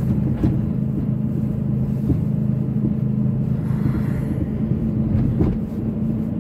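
Car cabin noise while driving: the engine and tyres make a steady low hum.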